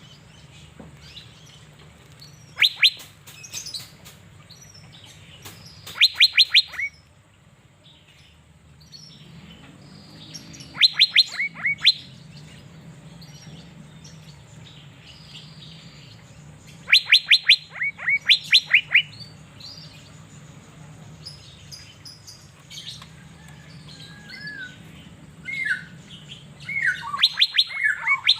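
Asian fairy-bluebird (cucak biru) calling: bursts of three to five quick, sharp notes, repeated every few seconds, then a run of shorter sliding notes near the end.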